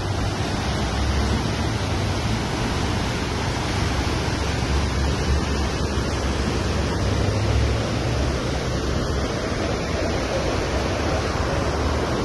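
River in flood rushing past: a steady, even rush of water, with an uneven low rumble underneath.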